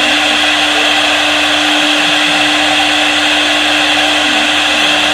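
CNC wood router running steadily while it cuts wood: a constant spindle whine over a dense, even cutting hiss.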